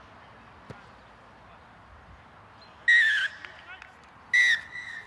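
Referee's whistle blown twice: a short blast about three seconds in that dips slightly in pitch, then a second blast a second and a half later that trails off. Faint open-air background between.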